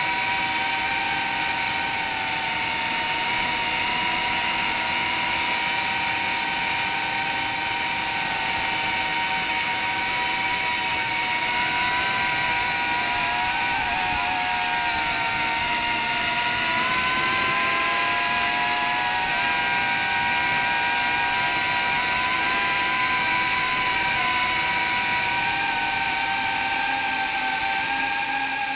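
Small FPV drone's brushless motors and propellers whining steadily in flight, picked up by the camera mounted on the drone itself. The pitch wavers a little about halfway through as the throttle changes.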